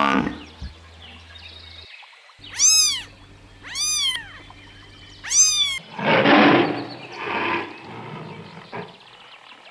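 A cat meowing three times, short high calls that rise and fall in pitch, followed by two rougher, noisier sounds.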